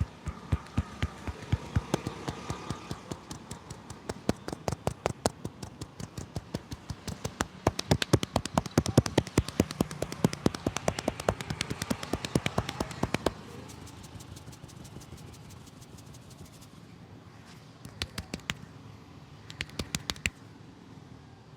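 Rapid percussive massage: a barber's hands slapping and tapping on a person's head and shoulders, several strikes a second for about thirteen seconds, then two short bursts of strikes near the end.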